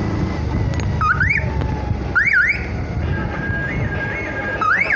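Electronic siren-style alarm cycling through its tones: two rising whoops, then a steady tone that steps up twice, then fast repeated rising sweeps starting near the end. A low engine rumble runs underneath.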